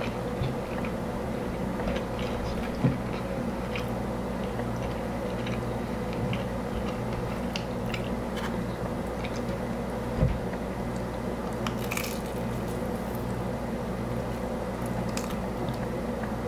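A person chewing a fried chicken tender close to the microphone: small wet mouth clicks and crunching, with a short crackle about twelve seconds in and two soft knocks, over a steady low hum.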